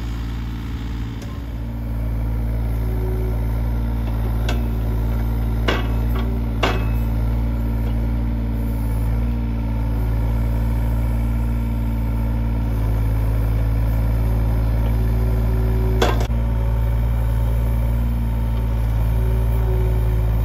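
John Deere 35G compact excavator's diesel engine running steadily while it digs. The engine gets louder about two seconds in as the work begins. A few sharp knocks stand out, three close together a few seconds in and one more near the end.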